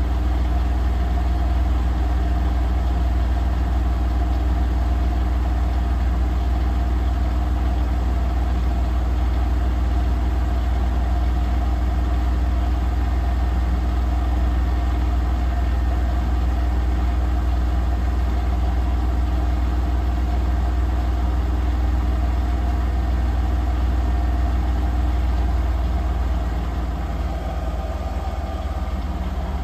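Profilo Premium 9 front-loading washing machine in its final spin with an unbalanced load, the drum and motor giving a loud, steady hum. It gets a little quieter near the end.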